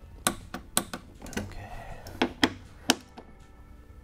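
Torque wrench and socket working the fuel tank's mounting bolts, tightening them to 12 newton meters: about six sharp metallic clicks, unevenly spaced.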